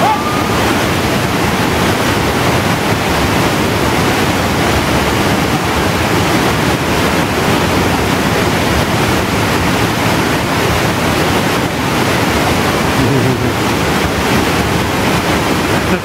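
Flood-swollen waterfall cascades and a fast, churning river: water rushing loud and steady.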